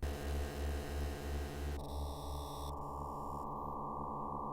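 Synclavier V software synthesizer holding one low note, its bass pulsing about four times a second. The harsh, buzzy upper distortion of a reduced bit depth (quantization distortion) drops away in steps about two and three seconds in, leaving a cleaner tone.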